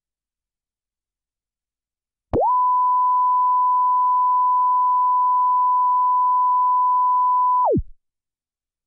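A steady test tone played back from tape on a Studer A810 two-track reel-to-reel recorder. It starts about two seconds in with a quick upward slide in pitch as the tape comes up to speed, holds one even pitch over faint tape hiss for about five seconds, then slides down and dies away as the tape stops.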